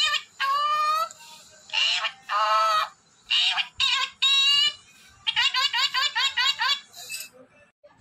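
Parrot calling: several shrill, pitched calls in short groups, then a quick series of about eight short notes that stops about seven seconds in.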